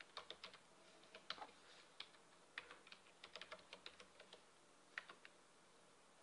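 Faint typing on a computer keyboard, keystrokes in short irregular runs with small pauses between them, stopping near the end.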